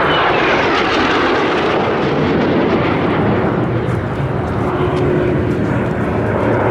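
Kawasaki T-4 jet trainers flying past with a loud, steady jet roar. A whine falls in pitch in the first second as the jet noise passes.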